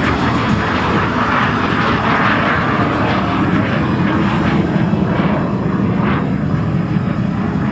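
Lockheed T-33 Shooting Star's single Allison J33 turbojet passing by: a steady jet rush that swells over the first couple of seconds and then eases off.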